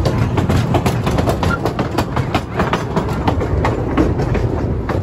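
Train running along the track: a steady low rumble with a rapid, irregular clatter of wheels over the rails.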